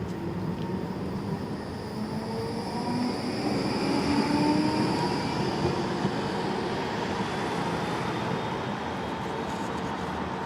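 City tram passing, its running noise and the whine of its electric traction drive growing to a peak about halfway through and then easing off.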